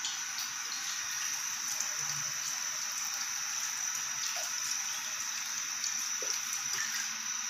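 Fish sauce poured from a bottle in a thin stream into a pot of chicken and broth, a steady trickle into liquid over an even hiss.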